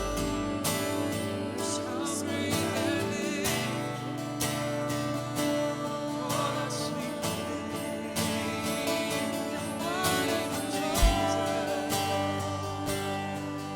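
Live church worship band playing a slow worship song: strummed acoustic guitar, piano and bass, with voices singing over it and a bass drum hit near the end.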